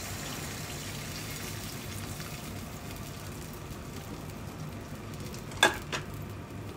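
Pot of water with beef and vegetables heating on the stove: a low, steady hiss, with two brief sharp sounds about five and a half seconds in.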